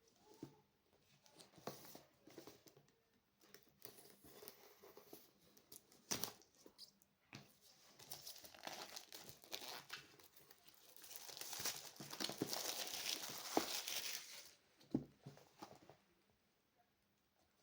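Keyboard packaging being handled by hand: crinkling and tearing with scattered sharp clicks, busiest in a stretch of a few seconds past the middle, then stopping near the end.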